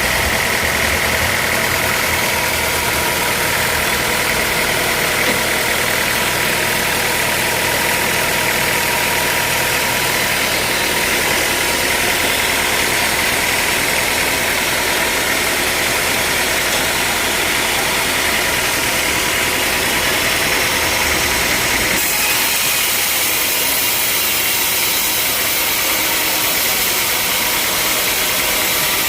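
Sawmill machinery running steadily, with a constant high-pitched tone over a loud mechanical noise. About 22 seconds in the sound changes abruptly, losing its low rumble and turning brighter and hissier.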